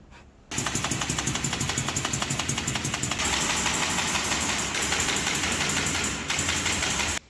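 A handheld power tool running with a fast, even rattle: it starts about half a second in, dips briefly near the end, and stops abruptly.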